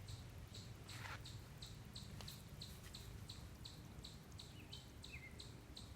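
Faint, evenly repeated high chirping, about two chirps a second, with a couple of softer lower calls near the end.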